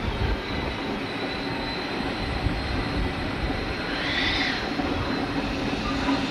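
Narrow-gauge Beyer Peacock 2-4-0 tank engine No. 10 'G.H. Wood' running slowly with its cylinder drain cocks open. Steam hisses steadily over the rumble of the engine and coaches on the rails.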